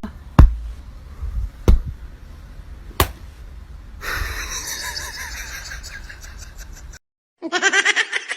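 Three sharp knocks or slaps about a second and a half apart, then about three seconds of people laughing. After a short break, bright quick music starts.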